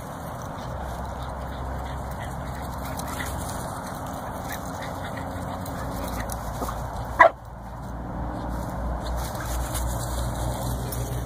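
A small dog gives one short, sharp bark about seven seconds in, over a steady background noise.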